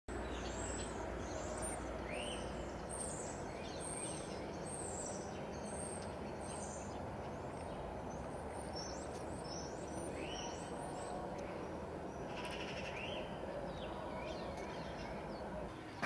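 Small birds chirping, many short high calls scattered throughout, over a steady background of outdoor noise.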